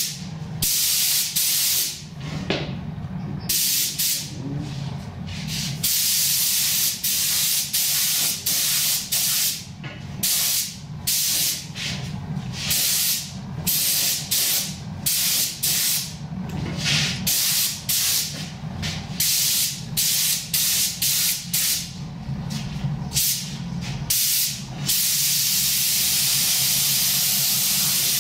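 Gravity-feed spray gun spraying paint in many short on-and-off bursts of hiss as the trigger is pulled and released, then held in one continuous spray near the end, laying the second coat on plastic moldings at about 50% coverage. A steady low hum runs underneath.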